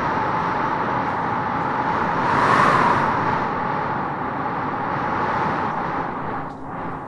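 Wind blowing in gusts, a steady rush that swells into a stronger gust about two and a half seconds in and eases briefly near the end.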